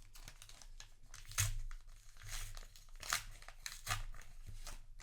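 Crinkling of a foil trading-card booster pack wrapper being handled, in a series of irregular scratchy rustles, the strongest about a second and a half, three, four and four and a half seconds in.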